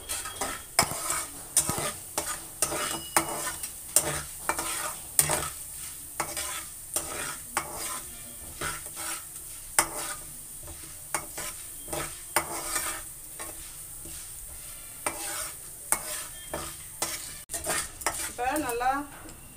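Metal spatula scraping and tapping an aluminium kadai, stirring chana dal and mustard seeds as they roast in hot oil, over a steady sizzle. This is the tempering stage of aval upma, with the dal being browned before the onions go in.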